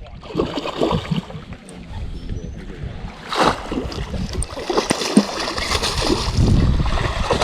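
Water splashing and sloshing, in irregular bursts over a low rumble, with a stronger splash about three and a half seconds in.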